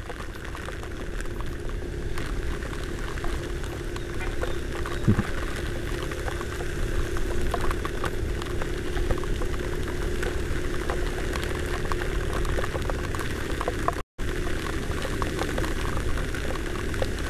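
Honda Vario 125 single-cylinder scooter ridden through heavy rain: a steady hiss of rain and water off the wet road under a low, even engine hum, with many small ticks of raindrops hitting the helmet camera. The sound cuts out for a moment about fourteen seconds in.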